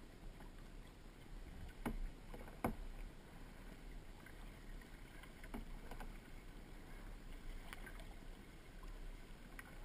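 Kayak being paddled: the wash and splash of paddle strokes in the water, with a few sharp knocks, the loudest about three seconds in, over a low steady rumble.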